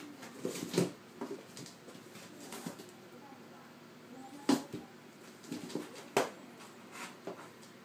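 A kitten's paws knocking and scraping on a cardboard box as it jumps at a dangling string toy: a string of sharp knocks, the loudest about four and a half and six seconds in.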